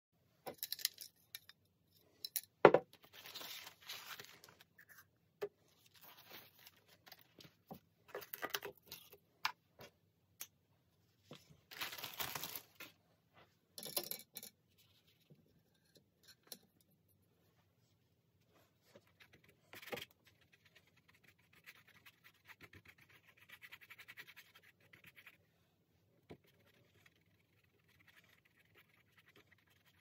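Paintbrush work and handling noise on paper while acrylic is laid in: scattered faint scratching and scraping with a few sharp knocks, the loudest about three seconds in. Later comes a few seconds of quick, light brush strokes scrubbing paint onto the paper.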